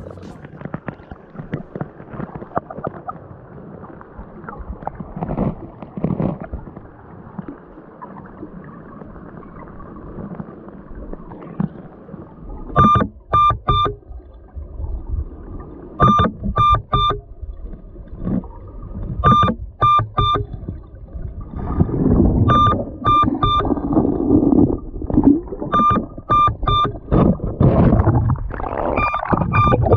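Muffled underwater noise from a camera held against submerged rocks, with gurgling and knocks. From about halfway, an electronic beeper sounds three quick beeps roughly every three seconds.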